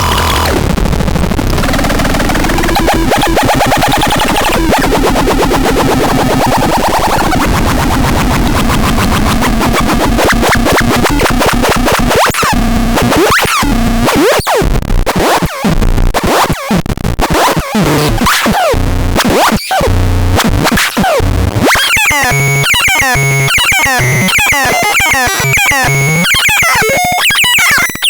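Harsh electronic noise from a BUBLAB sound device: a dense, warbling wash with gliding tones that, about halfway through, breaks into stuttering chopped bursts with short gaps. Near the end it turns into a fast repeating glitchy pattern with high gliding tones.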